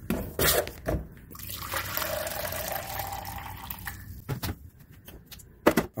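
A drink being poured into a cup for about two seconds, after a few clicks of bottle handling, then a sharp knock near the end.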